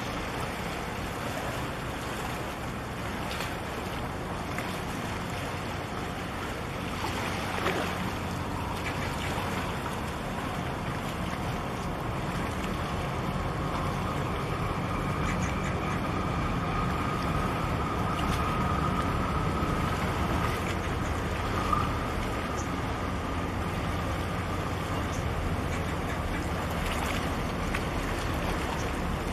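Container ship passing close by: a steady low engine drone that grows slightly louder as the ship draws level, under wind and water noise.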